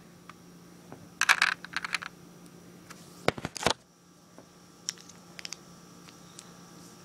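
Handling noise: a short clatter of small clicks about a second in, two sharp clicks a little past three seconds, then a few faint ticks, over a faint steady hum.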